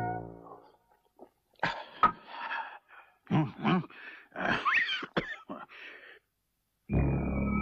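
A man coughing, gasping and groaning in a string of ragged bursts after gulping a potion. Held music notes come in near the end.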